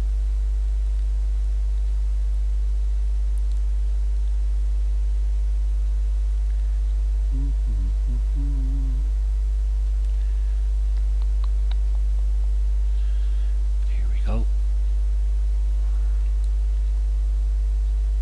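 Steady low electrical mains hum with its evenly spaced overtones, filling the recording. A short faint low murmur comes about seven to nine seconds in, and a brief faint click around fourteen seconds.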